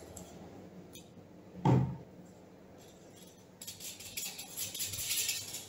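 A short thud about a second and a half in, then from about three and a half seconds a scratchy rustling and scrubbing as a scouring sponge is rubbed on a tray holding wood-stain bitumen.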